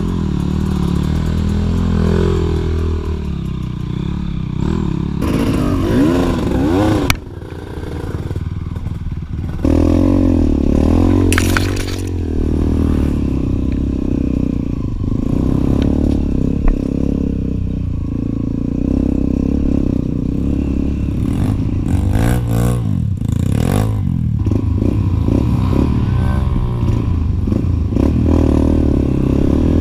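Enduro dirt bike engine running and being revved up and down while ridden along a trail, with scraping and clattering. It eases off about seven seconds in and picks up again a couple of seconds later.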